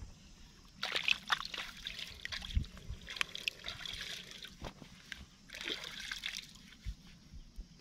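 Wet mud squelching and muddy water sloshing and trickling as a hand and a wooden stick dig into a waterlogged hole, with two louder bouts of wet crackling about a second in and near six seconds.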